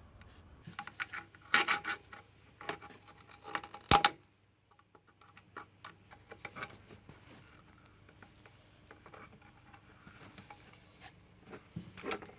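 Clicks, taps and light scraping from handling the extension board's plastic housing and metal parts while its metal stand is being taken off, with a short cluster of clicks early on and one sharp click about four seconds in.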